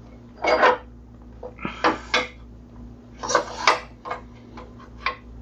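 Metal parts and tools clinking and clattering in hand on a miter saw as its fence is checked for being out of line. There are three short bouts of clatter, about half a second, two seconds and three and a half seconds in, with lighter single clicks between, over a faint steady hum.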